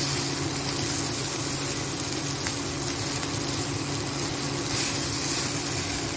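Steady sizzle of noodles, chicken and vegetables frying in a hot nonstick pan as they are tossed, over the steady hum of an induction cooktop.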